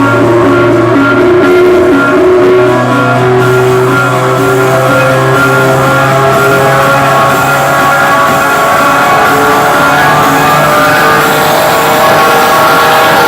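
Loud guitar-led rock music played through a car audio system, with sustained chords and notes and no breaks.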